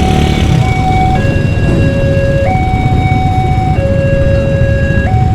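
Two-tone emergency siren alternating between a higher and a lower pitch, each held for about a second and a half, over loud, steady vehicle and traffic rumble.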